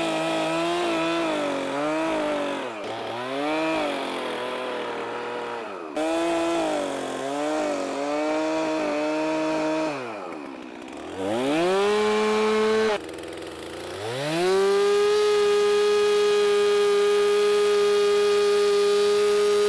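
Two-stroke chainsaw cutting through pond ice, its engine pitch sagging under load in the cut and climbing back several times. For the last five seconds it holds a steady high pitch.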